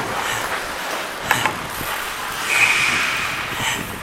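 Ice hockey skates scraping and carving on rink ice, with a sharp clack about a second in and a brief high-pitched tone about two and a half seconds in.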